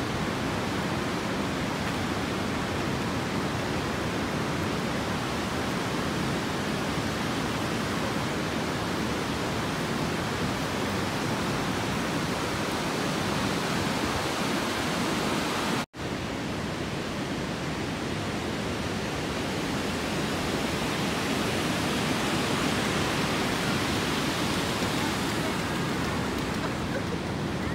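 Steady rushing of river water pouring over a weir. It breaks off for an instant about two-thirds of the way through, then carries on unchanged.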